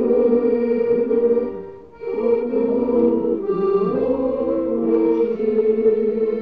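A group singing a Russian folk song together, with a short break between phrases about two seconds in.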